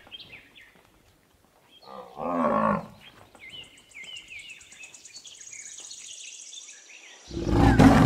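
An African buffalo gives one low, moaning call about two seconds in, with birds chirping and a high trill behind it. Near the end a loud, rough, noisy sound starts.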